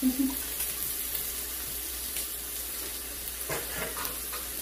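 Meat frying on an electric tabletop grill plate: a steady sizzling hiss, with a few faint short clicks about three and a half seconds in.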